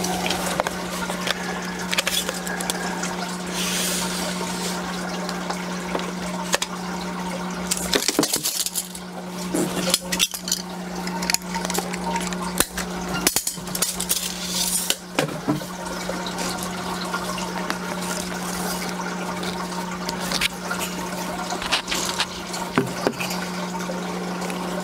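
Hands working 1/2-inch black drip tubing and small plastic barbed fittings: irregular clicks, taps and rustles of plastic as pieces are pushed together. Under them runs a steady low hum.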